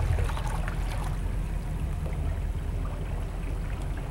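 Deck boat's engine running at low idle speed, a steady low rumble that fades slightly as the boat pulls away, with light water sounds.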